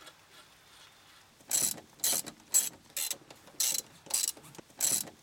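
Ratchet wrench clicking in short repeated strokes, about two a second, starting about a second and a half in, as a nut is run down while a strut/shock absorber is refitted.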